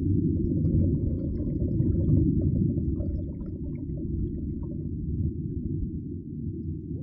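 Muffled underwater rumble, with faint scattered clicks and crackles, easing off over the last couple of seconds.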